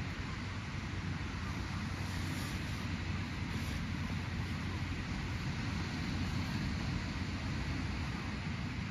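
Steady sea surf washing on a beach, an even hiss of water over a constant low rumble, with no distinct wave crashes.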